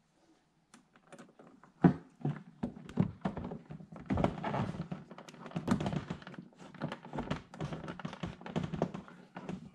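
Aero winglet being handled and pressed against a C7 Corvette's front bumper fascia while it is fitted: a string of irregular knocks, taps and rattles starting about a second in, with the loudest thunk about two seconds in.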